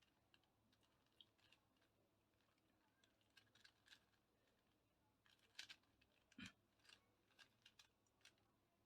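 Faint, irregular clicks of a 4x4 Rubik's cube's plastic layers being turned by hand, with two louder clacks past the middle.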